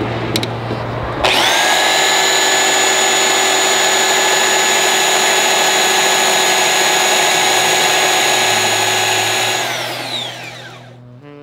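DeWalt benchtop belt sander switched on about a second in, running at a steady pitch while a small piece of wood is sanded on its belt. Near the end it is switched off and winds down, its pitch falling as it fades.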